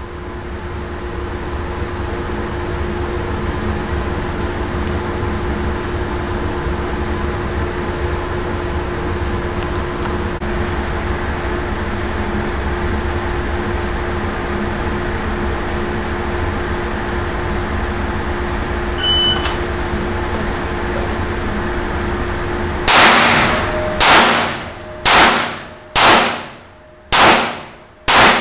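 Steady hum of indoor range ventilation, then a short high electronic beep about 19 seconds in, the start signal of a shot timer. From about 23 seconds in, six handgun shots about a second apart, each echoing off the walls of the indoor range.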